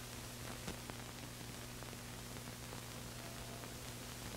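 Surface noise of an old film soundtrack: a steady hiss with a low hum under it and a few faint clicks.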